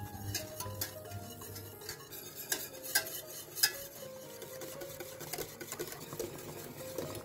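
Wire whisk stirring a milk mixture for pastry cream in a stainless steel saucepan, its wires clicking and scraping against the pot. A few louder clinks come about two and a half to three and a half seconds in.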